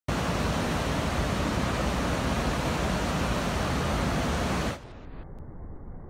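Waterfall and rushing river water making a loud, steady wash of noise. About three-quarters of the way through it suddenly drops in level and turns muffled, losing all its high end, as the slow-motion section of the recording begins.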